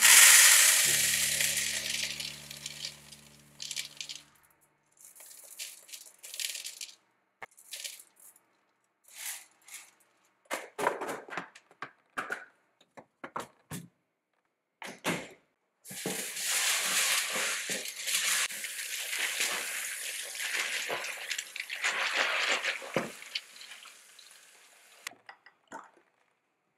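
Dried split peas poured into a plastic bowl: a loud rattling rush that starts suddenly and tapers off over about three seconds. Then come scattered clicks and clinks of plastic storage containers being handled, and a second rushing stretch lasting several seconds.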